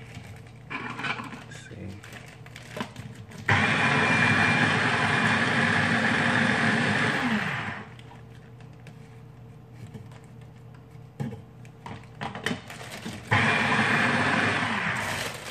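Small electric food chopper chopping mustard greens in two press-lid runs: about four seconds, then about two seconds near the end. The first run ends with the motor winding down. Before it, and between the runs, there is rustling of leaves and a plastic bag.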